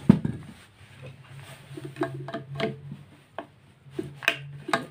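Handling noise of a vacuum cleaner motor being turned over and its plastic cover pried off with a screwdriver: one loud knock at the start, then a scattered string of sharp plastic-and-metal clicks and taps.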